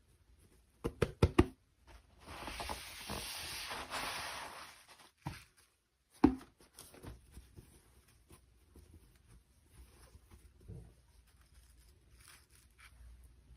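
Hands handling toy packaging: a quick cluster of sharp clicks and knocks, a few seconds of rustling, then one sharp knock and faint small taps.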